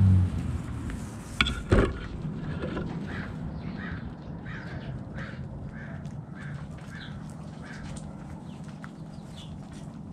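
Domestic hens clucking: a run of short, repeated calls about two a second. A loud low thump at the very start and two sharp knocks about a second and a half and two seconds in are the loudest sounds.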